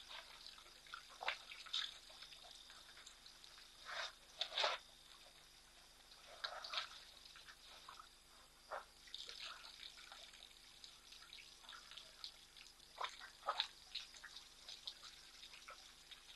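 Water splashing and dripping in short, irregular spurts as elephants drink at a waterhole, over a faint steady high hum.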